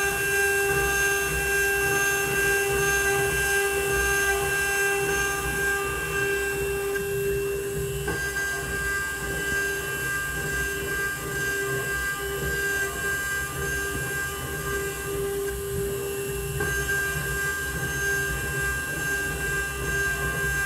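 CNC milling machine cutting aluminium: a steady spindle and cutting whine of several held tones over a low mechanical rumble. The whine shifts slightly about eight seconds in and again about sixteen seconds in.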